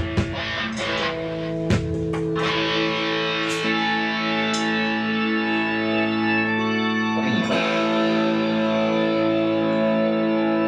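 Electric guitar played through an amplifier with effects: a few sharp strums, then long ringing chords that change twice, played as a level check before the set.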